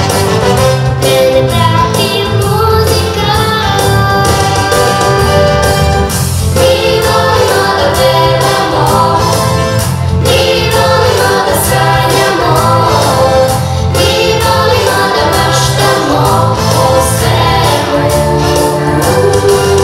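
A young girl sings lead into a microphone while a group of children sing along in chorus, over a pop accompaniment with a bass line and a steady beat.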